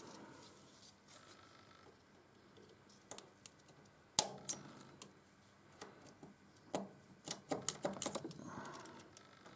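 Sharp metallic clicks of a small automatic centre punch snapping against the remains of a broken stud inside a hardened thread chaser, breaking pieces of the stud loose. The clicks start about three seconds in, the loudest comes about a second later, and a quick run of them follows near the end.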